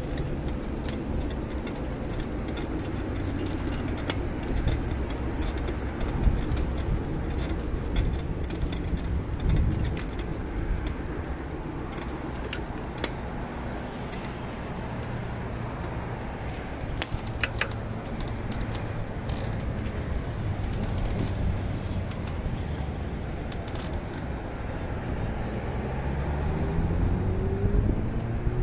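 Riding noise from a small vehicle moving along a road: rumble and a steady low hum, with scattered short rattles. Near the end a nearby vehicle accelerates, its pitch rising.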